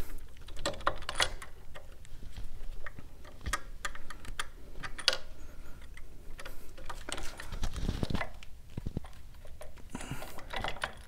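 Irregular light metallic clicks and taps as Allen bolts are worked up into a Buell engine's oil pump by hand with a hex key, with a duller knock about eight seconds in.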